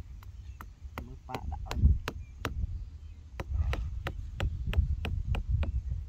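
A knife blade chopping at a small piece of wood in short, even strokes, about three a second, with a low rumble underneath.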